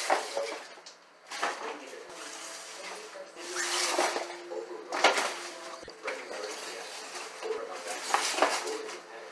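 A bag crinkling and scraping as it is slid back and forth across a wooden floor with a cat inside, in irregular bursts of rustling.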